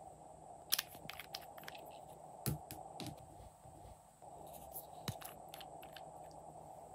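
Light clicks and taps of small glass nail-polish bottles and their caps being handled, with a few sharper clicks, over a steady faint hiss.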